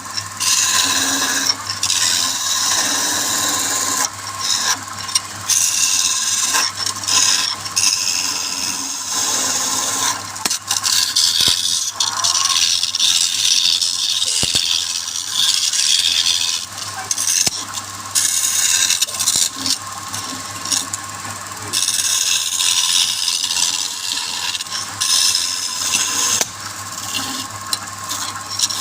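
Wood lathe turning a wooden workpiece while a turning tool cuts into it: a scraping, rasping hiss that breaks off and resumes again and again as the tool meets and leaves the wood, over a steady low hum.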